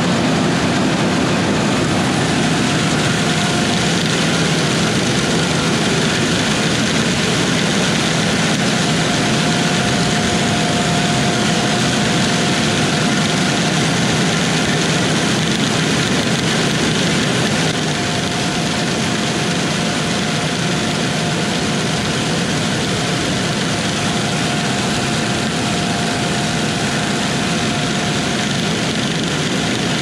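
Steady machine running noise with a faint whine that comes and goes, dropping slightly in level about two-thirds of the way through.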